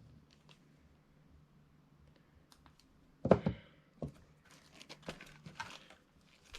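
Handling noises on a desk: a few faint clicks, a sudden knock about three seconds in, then scattered rustling and crinkling.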